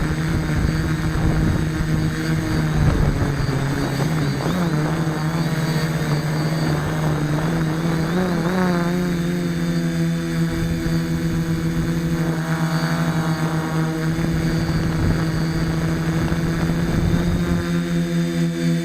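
DJI F450 Flame Wheel quadcopter's motors and propellers humming steadily in flight, the pitch wavering now and then as the throttle shifts, over a rough low rumble.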